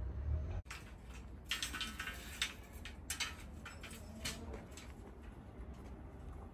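Scattered light clicks and scrapes from hands working on a steel rebar column cage, starting about a second in.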